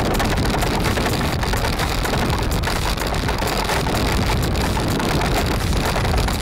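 Steady rush of wind on the microphone of a camera riding on a small kart, with the crackle of its wheels rolling over a gravel track.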